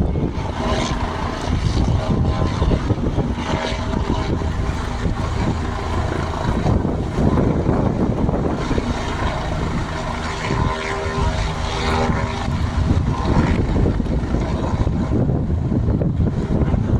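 Helicopter engine and rotor running steadily at close range: a dense, loud low rumble with steady whining tones over it.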